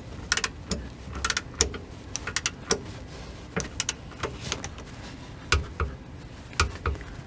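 Ratcheting torque wrench tightening the rear differential carrier stud to its torque spec: irregular bursts of sharp metallic clicks with short pauses between.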